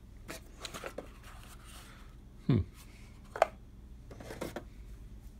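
Light handling sounds of shrink-wrapped card decks being lifted out of a board-game box's plastic insert: soft rustles and taps, with one sharp click about three and a half seconds in. A short falling vocal sound comes about two and a half seconds in.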